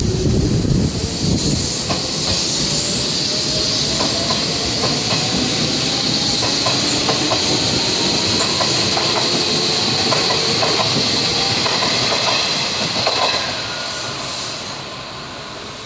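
Hanshin Railway electric train passing close by and running off down the line: wheels clicking over the rail joints, a steady hiss, and a motor whine that climbs slowly in pitch. The sound fades away from about 13 seconds in.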